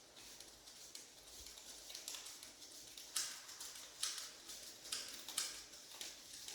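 A few sharp knocks and clicks, four of them loud and spaced about a second apart in the second half, with scraping noise between them, typical of hand work with tools on fittings.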